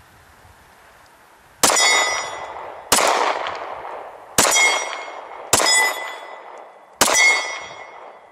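Five pistol shots from a Glock 27 subcompact in .40 S&W, fired at an even pace about a second and a half apart, starting about a second and a half in. Each shot has a ringing, metallic tail that dies away before the next.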